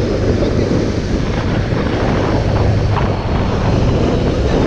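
Motorboat engine running steadily at speed while towing a parasail, a constant low hum under the rush of the wake and wind on the microphone.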